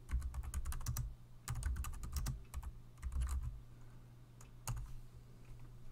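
Typing on a computer keyboard: three quick bursts of keystrokes in the first three and a half seconds as a short command is typed, then a single keystroke about a second later, the Enter key sending it.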